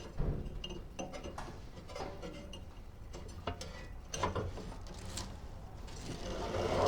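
Irregular metallic clicks and light knocks of a riding-mower deck's pulleys and belt guards being handled as a new deck belt is worked around them, with a louder rustle near the end.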